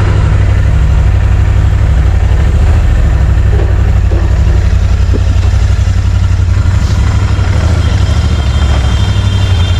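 Royal Enfield Interceptor 650's parallel-twin engine idling steadily.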